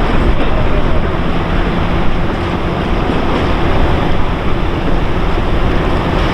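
Wind buffeting the microphone, a steady loud rush and rumble with no distinct events.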